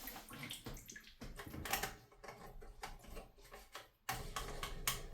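Light, irregular clicks and scrapes of plastic parts being handled as the plastic lock nut is threaded onto the shank of a new toilet fill valve.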